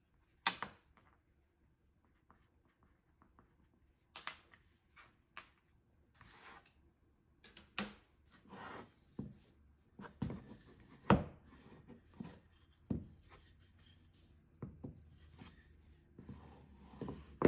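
A block of wild cherry wood handled on a wooden tabletop: scattered knocks and taps with short rubbing and scraping of hands on the wood. The sharpest knocks come about half a second in and about eleven seconds in.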